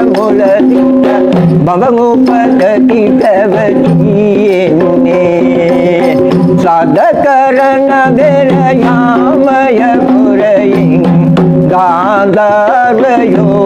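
A man singing a Sinhala folk chant, accompanying himself on a double-headed barrel drum that he strikes with his hands. The voice wavers and bends in pitch, with drum strokes throughout.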